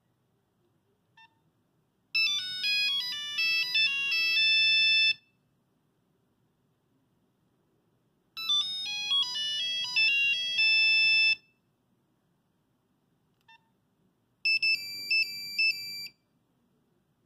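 Nokia 5110 mobile phone playing its built-in monophonic ringtones: a short beep, then a melody of single buzzy notes lasting about three seconds, which plays twice with a pause between. Another short beep follows, then a different, shorter ringtone melody.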